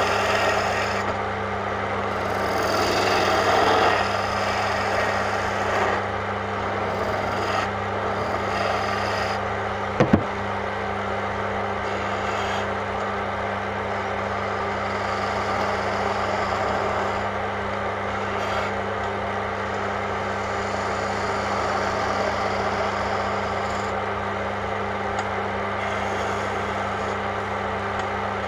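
Wood lathe running steadily with a low motor hum while a hand-held chisel cuts the spinning wood blank with a continuous scraping rasp, heaviest in the first few seconds. A single sharp knock about ten seconds in.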